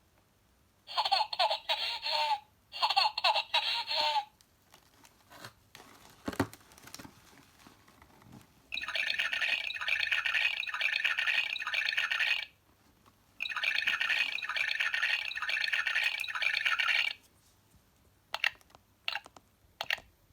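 Toy baby doll's built-in sound effects playing from its small speaker: two short recorded baby giggles in the first few seconds, then two longer, evenly pulsed electronic sound clips of about four seconds each, with a few light clicks of the doll being handled or its button pressed in between and near the end.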